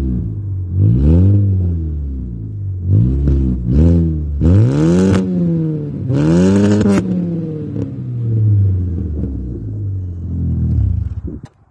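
Mk4 VW Golf's exhaust as the parked engine is revved about eight times in a row, each rev rising and falling in pitch. The two highest revs, about halfway through, carry a raspy hiss.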